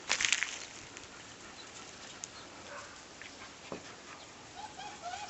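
A brief scuffling noise at the start, then quiet, and near the end a few soft, short whimpering yips from a Bernese mountain dog puppy.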